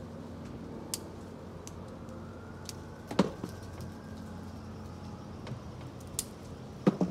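Calamondin fruit being clipped from the bush by hand: about eight short, sharp snips and clicks among the leaves, loudest about three seconds in and as a close pair near the end, over a steady low hum.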